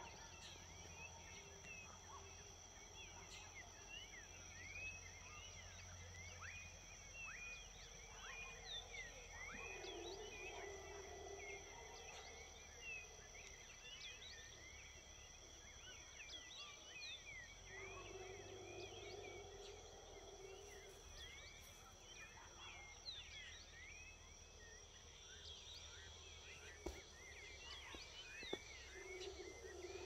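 Howler monkeys howling faintly in three bouts of about two seconds each: about ten seconds in, around eighteen seconds, and again near the end. Between the bouts there is a steady high insect drone and many short chirping calls.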